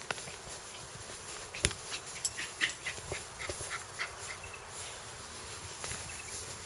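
Faint dog sounds over a low background hiss. A scatter of short, sharp clicks and ticks comes in a cluster through the middle.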